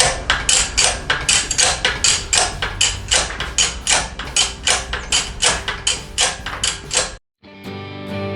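Rapid, evenly paced hammer blows, about three and a half a second, which stop suddenly about seven seconds in; guitar music follows near the end.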